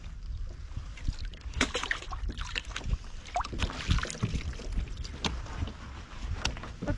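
Water sloshing and lapping against a kayak's hull, with a low rumble and scattered irregular knocks and clicks.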